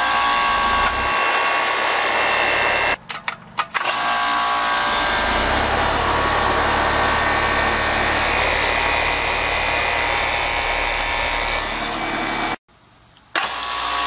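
Rheem heat pump outdoor unit running: a steady mechanical hum with whining tones from the compressor and condenser fan, and a deeper rumble coming in about four to five seconds in. The sound cuts out abruptly twice, briefly each time.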